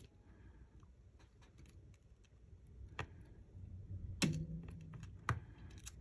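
Scattered small clicks and taps of tools and phone parts being handled on a repair bench, a few sharper ones in the second half, one followed by a brief low ring.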